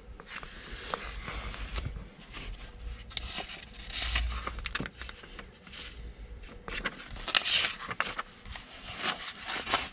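Paper pages of a softcover car owner's manual being turned and leafed through: irregular rustling and flicking with small clicks.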